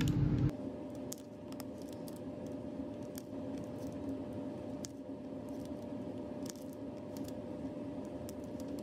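Faint, scattered small clicks of metal tweezers setting square drills onto a diamond painting canvas, over a steady low hum.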